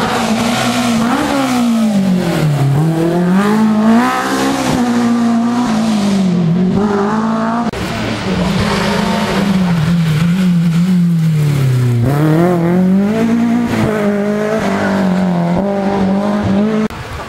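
Rally car engines revving hard on a forest special stage, the engine note climbing and dropping again and again through gear changes and lifts for corners. The sound breaks off abruptly about eight seconds in and again near the end.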